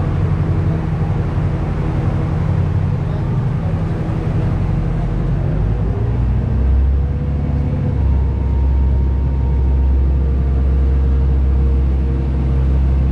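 Steady low drone of a river water bus's engine heard from inside the passenger cabin, shifting to a deeper, heavier hum about seven seconds in.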